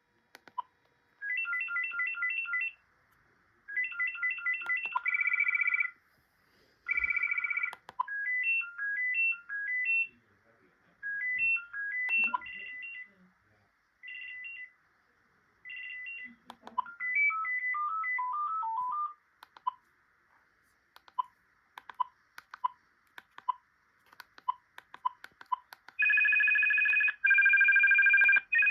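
iDECT Loop Plus cordless phone handset playing its built-in ringtones one after another: short electronic beeping melodies separated by pauses, with scattered single beeps and clicks between them. Near the end a rapid warbling two-tone trill ring begins.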